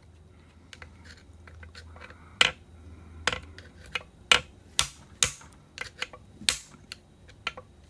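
Irregular sharp metallic clicks and ticks, a few of them much louder, as a hand tool picks and pries at a small keeper (retaining clip) against a steel transmission plate.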